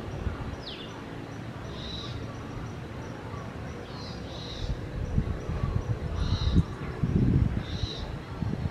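Short high-pitched animal calls repeating about every two seconds, with one quick falling whistle about half a second in. Low rustling and knocks grow louder in the second half.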